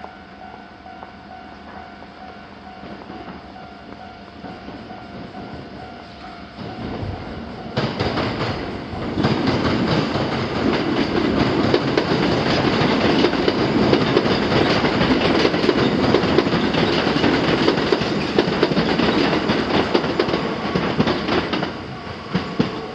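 A Kintetsu Nara Line electric train passing the level crossing, its wheels clattering rhythmically over the rail joints. It comes in about eight seconds in, stays loud for some fourteen seconds and fades near the end. A faint steady tone sounds during the first several seconds.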